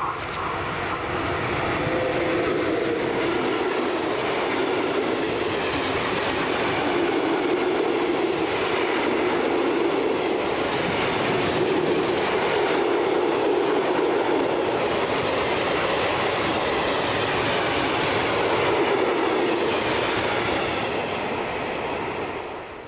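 Freight train of covered hopper wagons behind a class 182 electric locomotive passing close by: a steady loud rumble and clatter of steel wheels on the rails, easing off near the end as the last wagon goes by.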